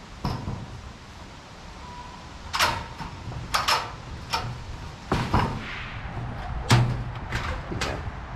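Hinged top door of a wooden rabbit tractor, covered in corrugated metal roofing, being handled and lifted open: a string of sharp knocks and rattles, the loudest about two-thirds of the way through.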